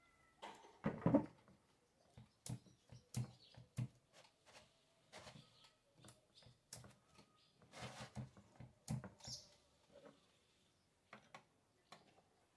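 Irregular clicks, knocks and rattles of metal chainsaw parts being handled as the guide bar and chain are fitted to a Stihl MS 462 and the chain tensioner is turned with a scrench. The loudest knock comes about a second in.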